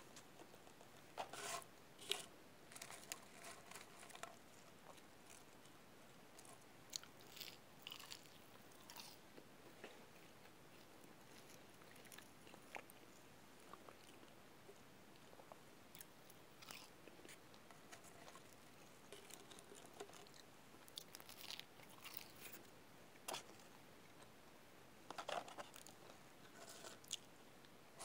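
A person eating a cheeseburger and French fries: faint chewing and biting, with scattered short clicks and crunches, a little louder about two seconds in and again near the end.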